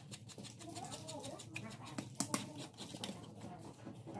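Scattered sharp clicks and taps of a small hand tool working a leather shoe upper on its last, loudest about two seconds in, with faint voices in the background.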